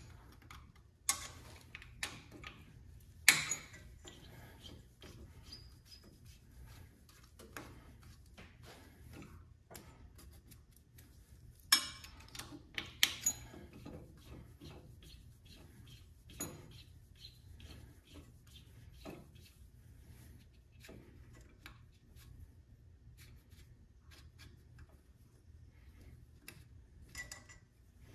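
Small metal clicks and clinks of a hex key working set screws out of a Cub Cadet's mechanical PTO hub: scattered light taps with a handful of sharper clinks, over a faint low hum.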